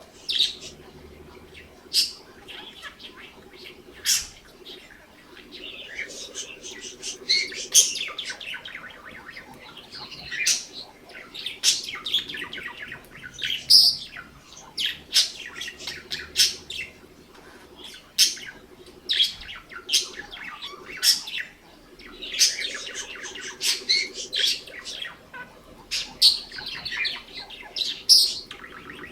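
Budgerigars chattering and warbling, with sharp, loud chirps every second or two over rapid twittering.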